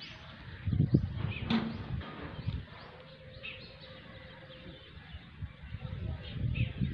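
Outdoor rural ambience: a few short bird chirps over a low, uneven rumble on the microphone, which swells about a second in and again near the end.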